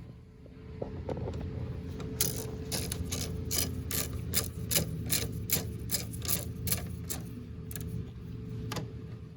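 Hand ratchet clicking as it runs in a headlight mounting bolt, in quick even strokes of about four clicks a second. The clicking starts about two seconds in, stops a little past the middle, and one more click comes near the end.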